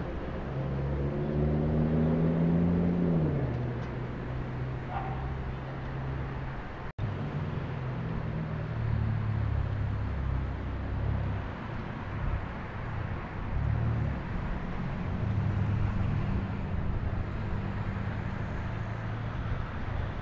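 Ex-1938 London Underground Class 483 electric train moving slowly, its motors giving a rising hum that drops back about three seconds in. A low hum and rumble follows, swelling and fading as the train comes on.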